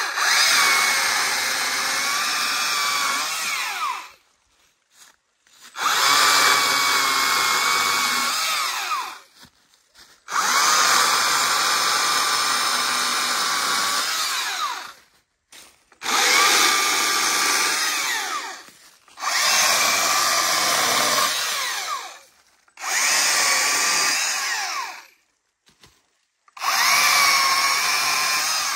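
Stihl MSA 300 battery chainsaw cutting dry wood in Eco mode, its reduced chain-speed setting. The electric motor whines in about seven runs of a few seconds each, and each run winds down with a falling whine as the trigger is let go.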